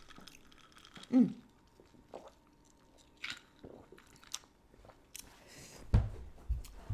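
Close-miked sipping and swallowing of an iced orange cream Coca-Cola Zero Sugar, with small wet mouth clicks and a short throat sound about a second in. Two low thumps come near the end.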